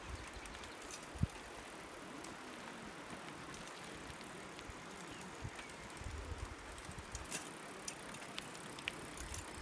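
Bicycles rolling along a rough, patched road: a faint steady hiss of tyres with scattered light clicks and rattles from the bikes, and a brief low rumble about six seconds in.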